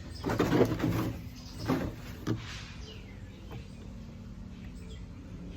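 A hole in the wall of a plastic water jug being cut wider: a few rough cutting strokes, the longest about a second long, in the first two and a half seconds, then quieter.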